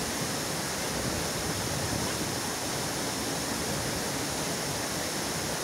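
Steady rush of a waterfall, with water pouring over a concrete weir below it.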